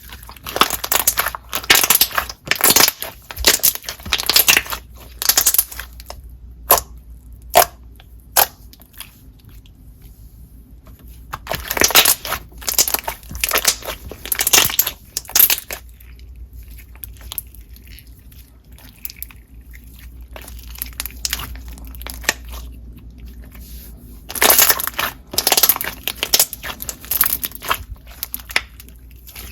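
Hands squeezing and pressing a clear water-jelly slime with foam chunks mixed in, in crackly, crunchy bursts a second or two long. Several sharp single pops come in a row about seven seconds in.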